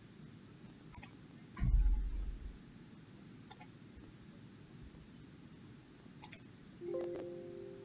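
Computer mouse buttons clicking, in quick pairs, three times. A louder dull thump comes about two seconds in, and near the end a short low tone sounds and fades away.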